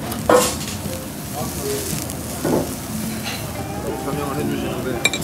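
Slices of beef tongue sizzling on a wire grill over charcoal, a steady hiss. There is a sharp clink about a third of a second in and a few quick clicks near the end.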